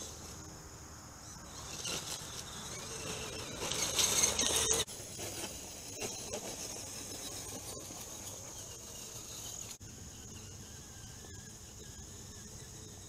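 Steady insect chirping, typical of crickets in late-summer woods, with a louder rushing noise for a few seconds near the middle that stops abruptly.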